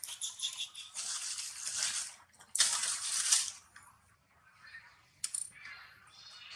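Two loud bursts of rustling, crackling noise, then quieter, with faint high squeaks near the end.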